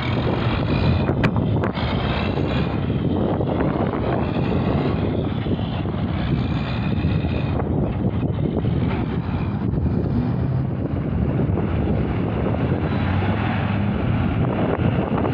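Heavy diesel trucks and other traffic passing through an intersection: a steady rumble of engines and tyres.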